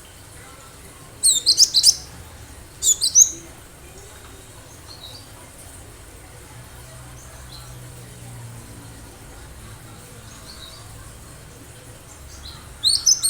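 Cinereous tit (gelatik batu) calling in quick bursts of sharp, high notes: two bursts in the first few seconds and another near the end, with faint scattered notes between.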